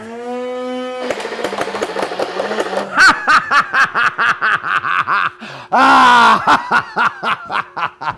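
Man whooping and laughing loudly while a motorized NERF Rival Nemesis blaster runs and fires foam balls in a rapid, even stream of sharp shots. A louder burst of laughter comes a little past the middle.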